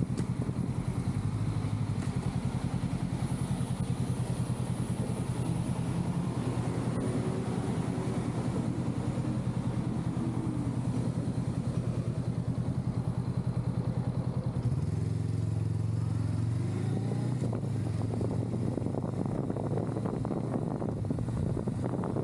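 Honda Rebel 500's parallel-twin engine running at a low, steady, evenly pulsing note. About two-thirds of the way through the note changes abruptly as the bike gets going again, and wind and road noise rise near the end.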